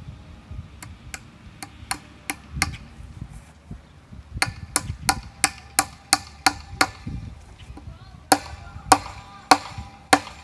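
Hammer driving fence staples (tacks) into a wooden fence post to pin welded wire fence. It comes as three runs of quick, even strikes, about three a second, and the last few blows are the loudest, with a short metallic ring.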